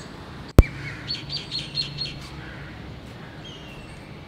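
A sharp click about half a second in, then a small bird chirping: a quick run of short high notes, about five a second, followed by a few single calls.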